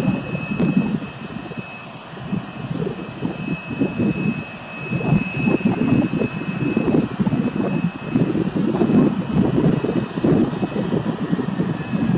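Twin-engine jet airliner on landing approach with gear down, its engines a low rumble that swells and fades unevenly over a thin steady high whine.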